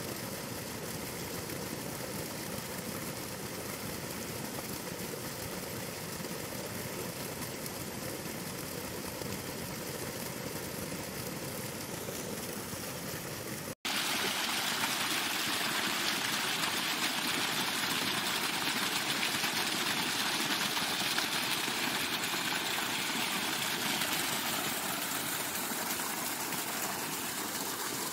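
Irrigation water gushing steadily from a pipe outlet onto the ground. After an abrupt cut about halfway, a slightly louder, brighter rush of water runs down a garden irrigation channel through grass.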